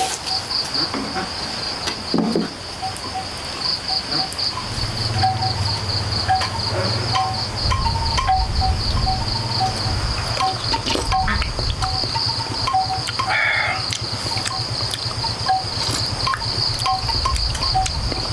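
Insects trilling steadily in a high, finely pulsed chirr. Short low pips repeat every second or so, and a low rumble comes in about four seconds in.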